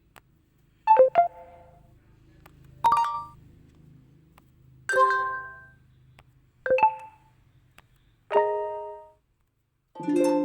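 Short electronic chime tones from the Oppo A5 2020's ColorOS 7.1 sound set, played one after another about every two seconds. Each is a different chime of one or two quick notes that rings and fades.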